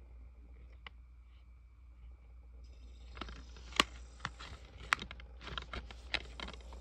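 Plastic DVD case being handled: a single faint click about a second in, then a run of sharp, uneven clicks and taps from about three seconds in, the loudest about a second later.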